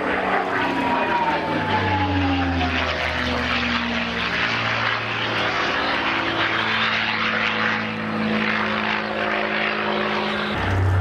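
Consolidated PBY-5A Catalina's twin radial piston engines droning as it flies past. The engine tones drop in pitch over the first few seconds, then hold steady, and a deeper tone comes in near the end.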